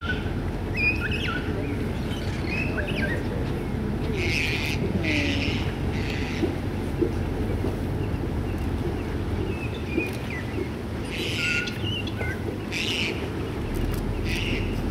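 Birds chirping and calling: short gliding chirps and several brief, harsher scratchy calls, over a steady low rumble.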